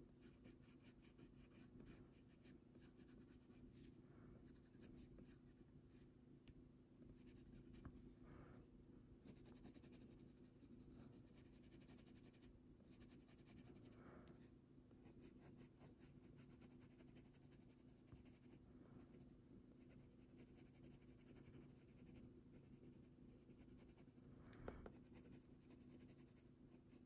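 Faint scratching of an ivory Faber-Castell Polychromos coloured pencil on paper, in short, steady blending strokes, with a single soft knock near the end.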